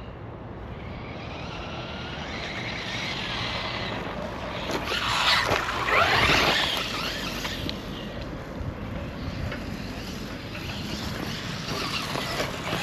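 A Traxxas Rustler BL-2s RC truck's brushless motor whining up and down in pitch as it is driven, with tyre and ground noise. It is loudest about five to seven seconds in.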